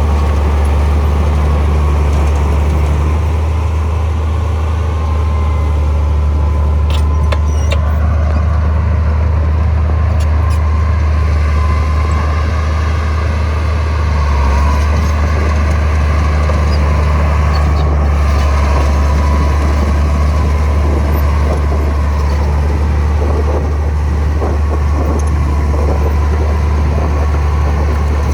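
Komatsu bulldozer's diesel engine running steadily under load, a deep, even drone with a few faint clicks.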